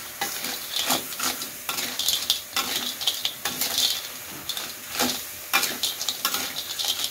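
Metal spatula scraping and knocking against a wok as red-eye snails in their shells are stirred through sambal, in repeated irregular strokes, over a steady sizzle of frying.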